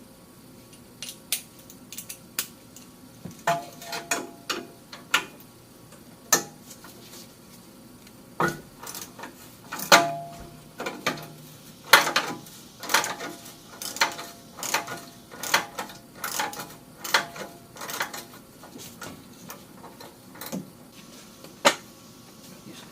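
Hand tools working on the exhaust clamps and hangers while unbolting a rear muffler: irregular sharp metallic clinks and clanks, some ringing briefly, as wrench and sockets knock against the metal.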